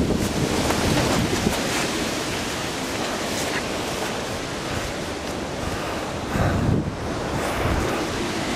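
Hurricane-force wind blowing in gusts and buffeting the microphone, a dense, steady rush of noise.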